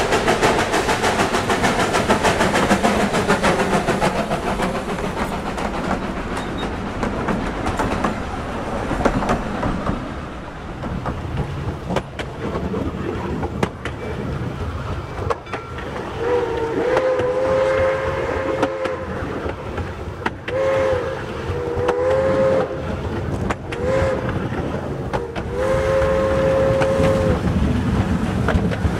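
Narrow-gauge steam train running: the locomotive works hard at first, then the cars roll along with a steady clatter. From about halfway in, the steam whistle sounds several blasts, a long one first and last with shorter ones between.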